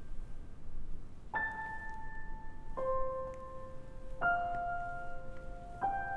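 Background film score of slow, sparse piano notes: four single notes struck about a second and a half apart, each left ringing into the next.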